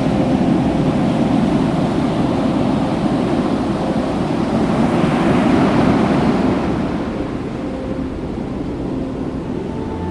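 Ocean surf breaking on a beach, a steady wash of noise. A wave swells to its loudest about five to six seconds in, then eases off.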